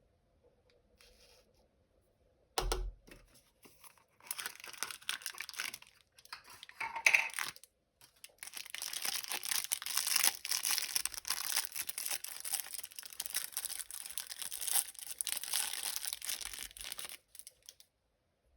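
Plastic packaging being crinkled and torn open by hand. A sharp knock comes about three seconds in, then short bursts of crackling. From about eight seconds there is a long stretch of continuous rustling and tearing that stops shortly before the end.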